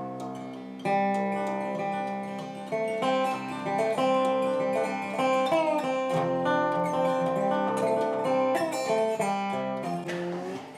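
Background music played on acoustic guitar, with plucked and strummed notes.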